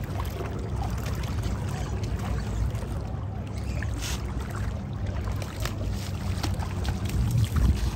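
Water sloshing and splashing along the shore over a steady low rumble, with a brief sharper splash about four seconds in.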